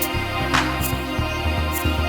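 Background music with a steady beat: sustained bass notes that change every half second or so and regular cymbal hits.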